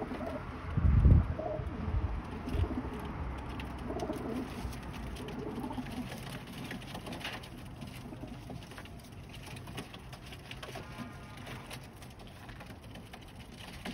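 Domestic pigeons cooing, a run of low, soft calls with the loudest about a second in, growing quieter in the second half.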